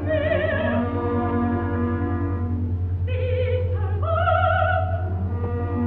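Operatic soprano singing high held notes with wide vibrato in three phrases over an orchestra, in an old live opera recording with a steady low hum underneath.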